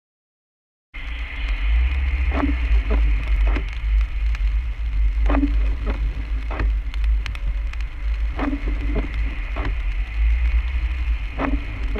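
Car cabin noise picked up by a dashcam: a steady low rumble of tyres and road on a wet, slushy highway, with the windshield wipers sweeping about every three seconds, each pass a few clicks and a thump. The sound is cut out for about the first second.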